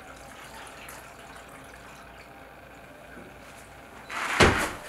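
A huge calligraphy brush loaded with black ink is worked in its bucket with faint wet sounds, then swung down and slapped onto a large sheet of paper about four seconds in: a loud wet splat that builds over half a second.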